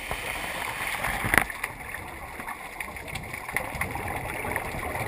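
Underwater sound picked up through a camera housing: a scuba diver's exhaled bubbles gurgling from the regulator over a steady hiss, with small clicks and one sharp knock about a second and a half in.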